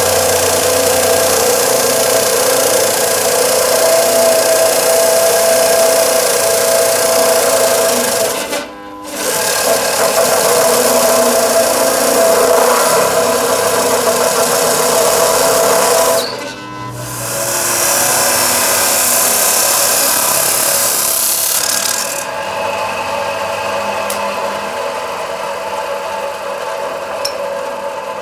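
Electric abrasive cut-off saw grinding through metal bar stock: a loud, harsh, steady grinding, broken by two short gaps about nine and seventeen seconds in. About 22 seconds in the cutting stops and the sound drops to the quieter steady running of the saw's motor and wheel.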